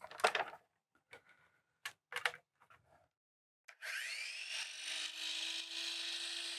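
A few clicks and knocks as the saw is handled, then about four seconds in a Bosch 10-inch sliding miter saw's motor starts, its whine rising briefly as it spins up and then running steadily. The saw is running off a portable power station's inverter.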